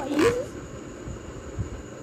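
A girl's brief wordless vocal sound with sliding pitch, then quiet room hiss with a soft low thump about a second and a half in.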